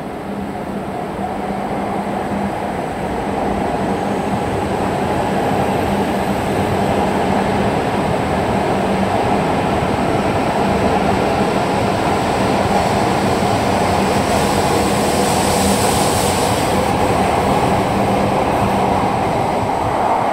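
E5-series shinkansen running in along the platform: a steady rumble and rush of the passing train that swells over the first few seconds and then holds loud, with a low steady hum under it and a brighter hiss around fifteen seconds in.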